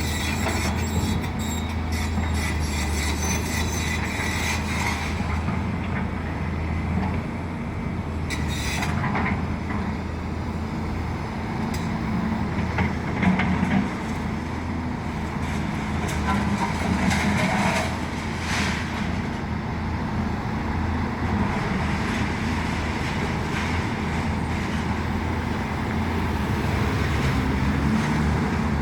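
Large excavator's diesel engine running steadily, with intermittent metallic squeals and clanks from the machine working.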